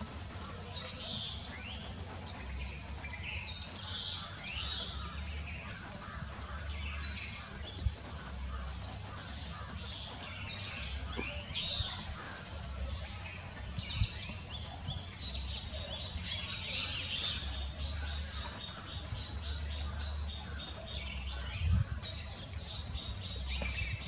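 Many birds chirping: short, high calls that overlap throughout, over a steady low rumble. Three brief knocks stand out, about 8, 14 and 22 seconds in.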